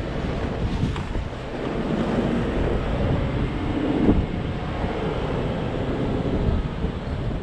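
Off-road vehicle's engine running as it drives, a steady low rumble with wind noise on the microphone.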